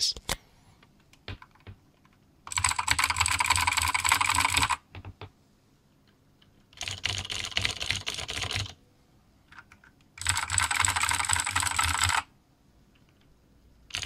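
Three bursts of fast typing on clicky mechanical keyboards, each about two seconds long with short pauses between, the keystrokes running together into a dense, high-pitched clicking. Gateron Blue switches in a light open chassis are compared with a closed-shell Cherry board.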